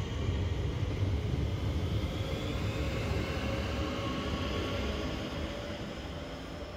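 Southeastern Class 465 Networker electric multiple unit pulling out of the platform: a low running rumble with an electric motor whine that rises in pitch as it picks up speed. The sound fades over the last couple of seconds as the train draws away.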